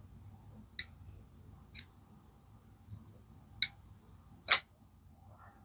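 Four sharp clicks, spread about a second or two apart, from an Ozark Trail liner-lock folding knife's blade being worked open and shut; the action is a little stiff.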